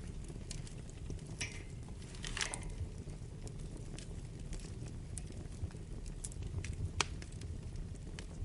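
Wood fire burning in a fireplace: a steady low rumble with scattered crackles and pops, a short hiss about two and a half seconds in, and one sharp snap about seven seconds in.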